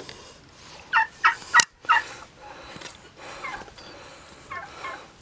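Four short, pitched animal calls in quick succession about a second in, with one sharp snap among them from steel horse hoof nippers cutting through an overgrown pig hoof.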